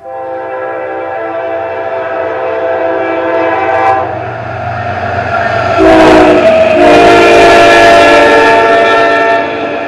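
Air horn of a CSX intermodal train's GE ES44AH diesel locomotive sounding a long blast as the train approaches and passes close by. Its pitch drops as the locomotive goes past about four seconds in. From about six seconds the loud rush of the passing locomotives and wheels joins in, and the horn cuts off near the end.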